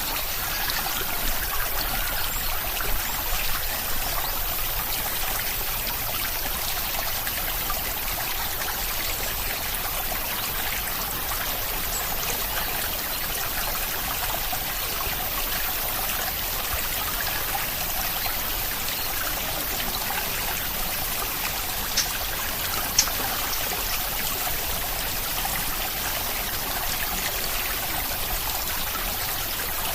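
Steady rain: an even hiss of falling water with scattered drop ticks, two of them sharper about two-thirds of the way through.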